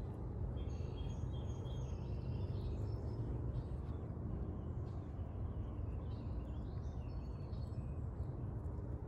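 Steady low outdoor rumble with faint, high bird chirps and peeps, in two spells: from about half a second to three seconds in, and again from about six to eight seconds in.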